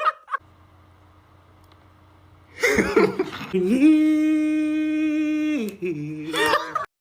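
A person's voice making a comic sound effect: after a couple of seconds of faint room hum, the voice slides up into one long, steady note held for nearly two seconds, then drops away.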